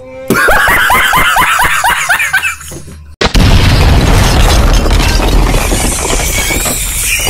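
A rapid series of short swooping pitched tones for about three seconds, then a loud cartoon explosion sound effect about three seconds in: a boom followed by a long crumbling rumble as debris falls.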